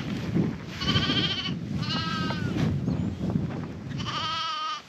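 Young Dorset lambs bleating: three high, wavering bleats about a second apart, over a steady low background rumble.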